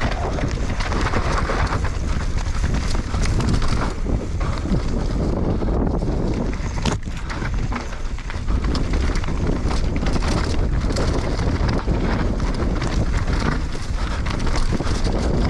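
Wind rushing over the microphone of a camera riding along on a mountain bike at speed, with tyre noise and frequent clattering knocks as the bike goes over rough trail. The rush eases briefly about seven seconds in.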